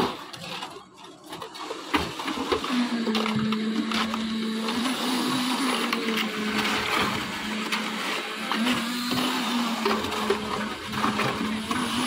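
Concrete mixer machine running, starting about two seconds in: a steady engine hum over a noisy churn of concrete.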